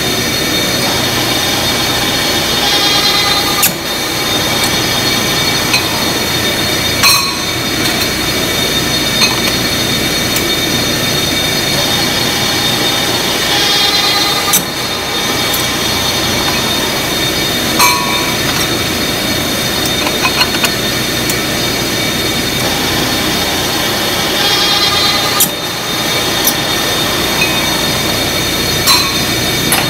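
Loud, steady machine-shop noise around a drill press: a constant mechanical hum with high whining tones, broken every few seconds by sharp metallic clanks.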